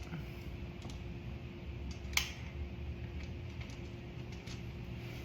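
Faint small clicks of bolt hardware being handled during the saddlebag mounting, with one sharper click about two seconds in, over a steady low hum.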